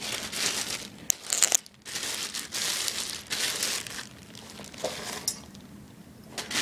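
Packaging crinkling and rustling in irregular bursts as a new car amplifier is unwrapped, with a few sharp crackles about a second in.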